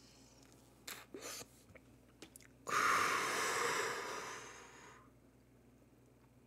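A few short clicks and scrapes about a second in, then a long, loud breath of about two seconds that fades out, taken while smoking a bowl.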